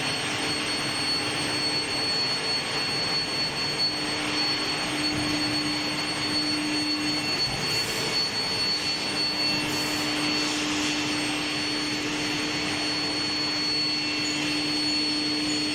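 Steady industrial machinery noise from a steel bar induction hardening and tempering line: a constant hiss with a low hum and a thin high-pitched whine running underneath.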